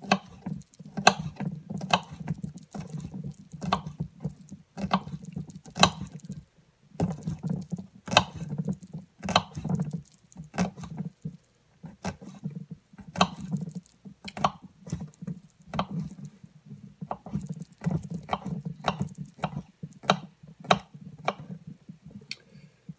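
Kitchen knife chopping garlic cloves on a cutting board: uneven sharp knocks of the blade hitting the board, about two a second, with a short pause about six seconds in.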